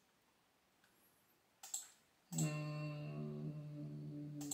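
A single click, then a man's voice holding one long, steady note for about two seconds, a drawn-out hum or vowel.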